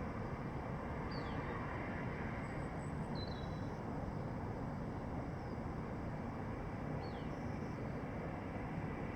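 Steady, even city background noise with a few short, downward-sliding bird chirps over it, about a second, three seconds and seven seconds in.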